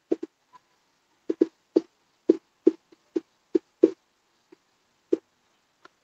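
Marker pen writing on a whiteboard: about a dozen short, irregular squeaks and strokes as words are written out.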